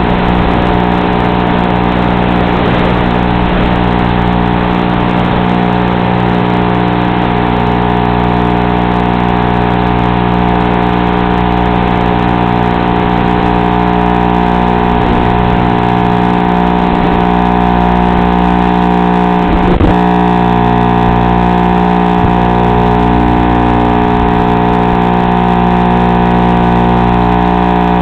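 Steady buzzing hum of the FPV aircraft's electric motors and propellers, carried with hiss on the analog video link's audio.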